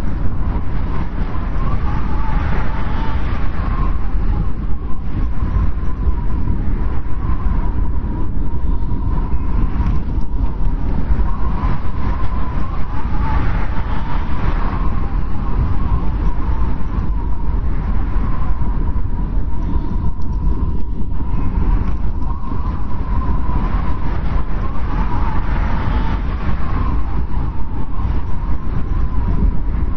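Strong wind blowing in a steady low rumble, with a whistling howl that swells and fades every few seconds as gusts come and go.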